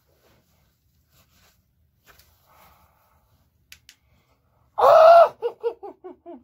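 A person's voice lets out a loud, high cry, then a quick run of about seven short laughing notes that fall in pitch, like a mock-sinister laugh. Before it there are only a few faint clicks and rustles.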